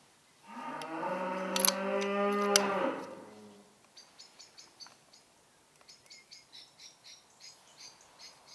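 A cow mooing: one long, low call lasting about three seconds, with two sharp clicks during it. After it, faint high-pitched chirping in quick pulses, several a second.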